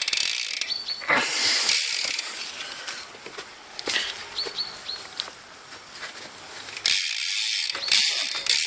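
BSD Street rear hub of a BMX bike ratcheting as the back wheel is spun: fast clicking that fades as the wheel slows, then spun up again about seven seconds in into a louder, steady high buzz.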